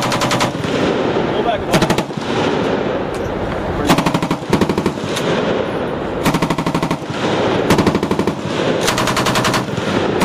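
Heavy machine guns firing short bursts of automatic fire, about seven bursts in ten seconds, each lasting under a second, with a continuous rumble between them.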